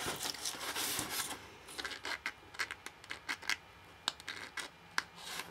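A sheet of cardstock rustling and scraping as it is handled, with a needle and thread rubbing against the paper: irregular light scratches and taps.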